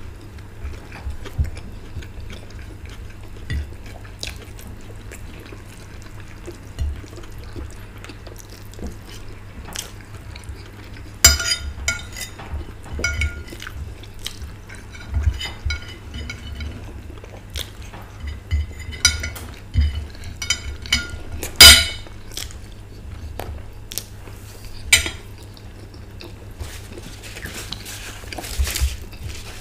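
Fork and cutlery clicking and scraping on china plates while eating, with a few sharp, ringing clinks of crockery.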